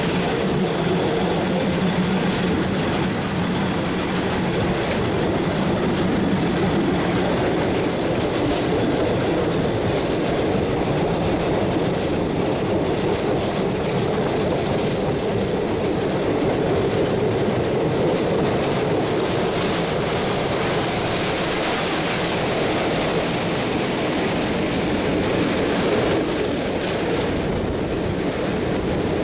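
Train hauled by the R class steam locomotive R711, heard from an open carriage window: a steady rumble of wheels running on the rails with rushing air.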